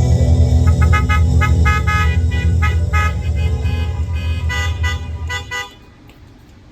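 Many car horns honking in short overlapping toots, the drive-in congregation's applause, over a low steady drone. The horns and the drone cut off together about five and a half seconds in.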